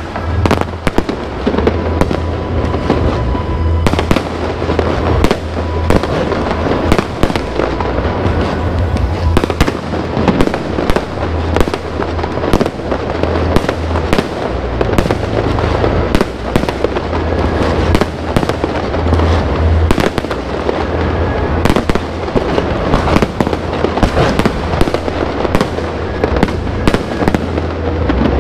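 Fireworks display in full barrage: a dense, continuous run of sharp bangs and crackles with no pause, over a steady low rumble, with music playing underneath.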